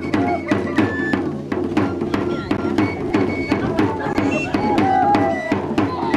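Live dance music with a drum beaten in a steady quick beat, about four strokes a second, short high melody notes over it, and crowd voices.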